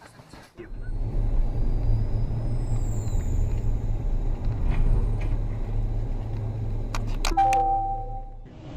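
A car driving, heard as a steady low rumble of engine and road noise. Near the end come a few clicks and a brief chime-like tone.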